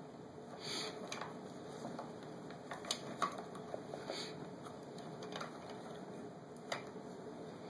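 Toy front loader pushed through crumbly chunks of dig-kit dirt in a plastic tub: faint scraping and rustling, with scattered small clicks as pieces knock together and against the tub, the sharpest about three seconds in and again near the end.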